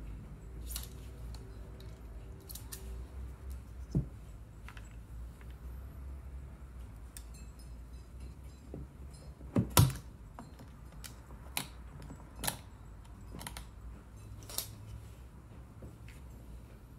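Scattered clicks and taps of small hand tools and a plastic carburettor back plate being handled on a workbench, the loudest a sharp knock about ten seconds in, over a low steady hum.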